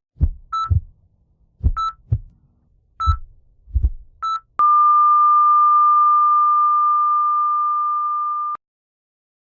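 Heart-monitor sound effect: a heartbeat thumping in double beats about every second and a quarter, with a short electronic beep on each beat. After four beeps the beeping gives way to one long, steady, flat tone for about four seconds that cuts off suddenly, the flatline that signals the heart has stopped.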